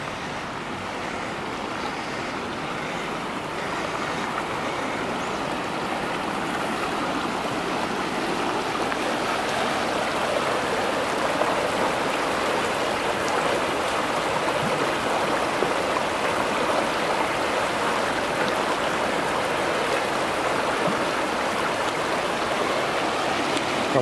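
Fast-flowing creek rushing over rocks, growing louder over the first several seconds, then steady.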